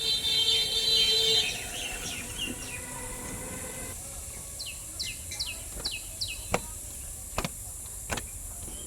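Birds calling: a loud, high held call in the first second and a half, then a quick run of about five falling chirps. Three sharp clicks follow near the end.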